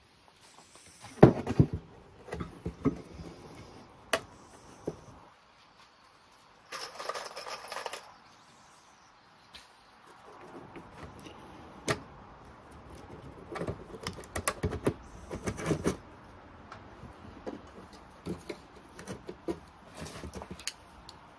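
Handling noise from fitting rivets and a brake lining pad to a steel brake band on a wooden workbench: scattered clicks, taps and knocks of metal parts and pliers. The loudest is a knock about a second in.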